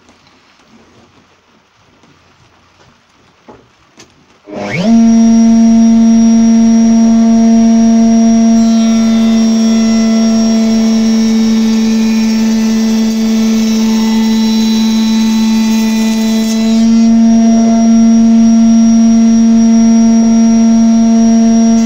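Router in a router table switching on a few seconds in and spinning up quickly to a steady, loud, high-pitched whine. From about a third of the way in until near the end, a harsher hiss joins it as the cutter grooves the edge of a pine board.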